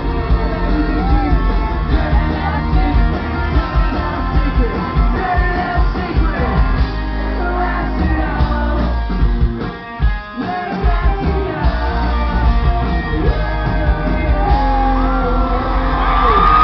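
A live rock band playing with a lead singer and electric guitars, heard from the audience at loud volume. The music drops out briefly about two-thirds of the way through, then kicks back in.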